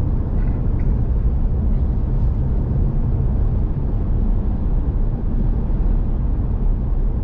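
Steady low rumble of a vehicle driving along a road: engine and tyre noise with no change in pace.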